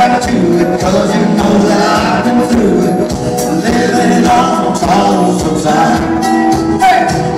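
Live music played loud over a PA system, with a man singing into a microphone.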